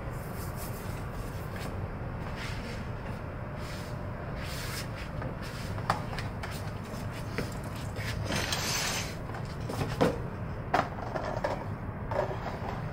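Kitchen work sounds: a few knocks and scrapes over a steady low rumble, with a brief hiss about eight seconds in.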